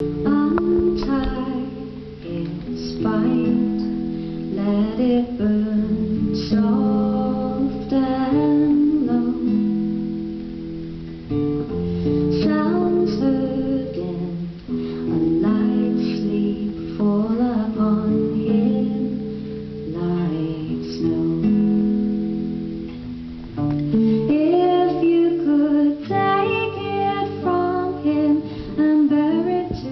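Acoustic guitar played in a live duo performance, with a few sharp percussion taps scattered through.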